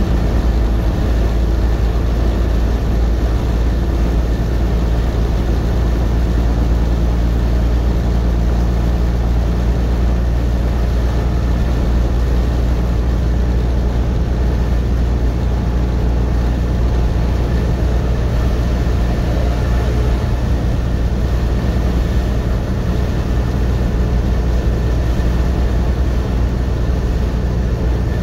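Steady drone of a semi truck's diesel engine and road noise heard inside the cab at highway cruising speed, dominated by a strong low rumble.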